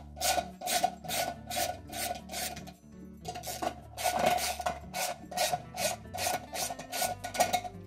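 Ratchet with a 1/2-inch socket on an extension being swung back and forth to back out bolts, a rapid ratcheting burst about three times a second, with a short pause about three seconds in.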